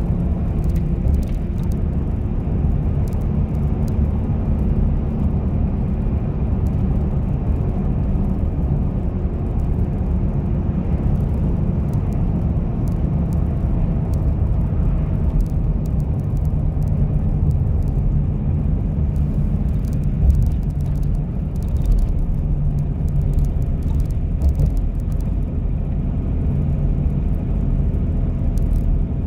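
Steady low rumble of a car being driven, engine and tyres on tarmac heard from inside the cabin, with a couple of brief bumps about two-thirds of the way through.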